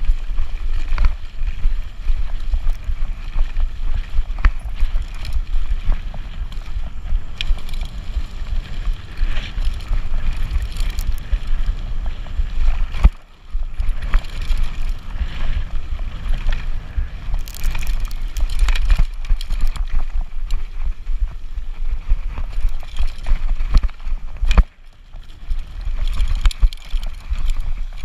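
Wind buffeting the microphone and tyre rumble from an e-bike riding fast over a forest trail, with frequent sharp knocks and rattles as it takes bumps. The noise drops away briefly about 13 seconds in and again about 24 seconds in.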